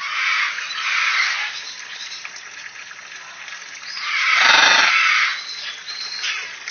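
Parrot giving harsh, screechy squawks: two short ones at the start, a long, much louder one about four seconds in, and a brief one near the end.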